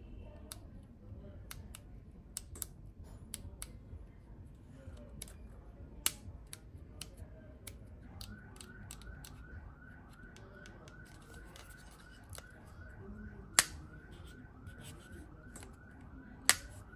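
Small plastic clicks and snaps of a Canon EOS R100 mirrorless camera body being handled: its dial and buttons are worked, and its pop-up flash is raised, with three sharper snaps standing out. From about halfway through, a repeating chirp about four times a second sounds in the background.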